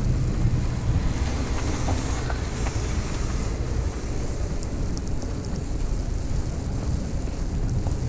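Snowstorm wind gusting over the microphone: a steady low rumble under a noisy rush, with a brighter hissing swell about two seconds in.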